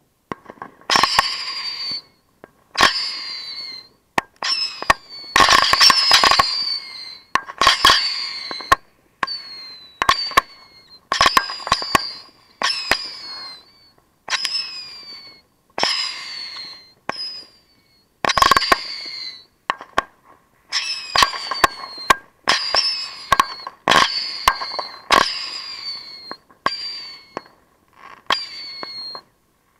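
Consumer fireworks launched close by, firing shot after shot about once a second. Each shot is a sharp crack followed by a short falling whistle.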